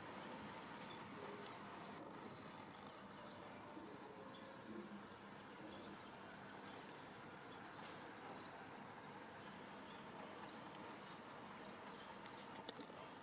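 Faint background hiss with an insect chirping high and evenly, about twice a second.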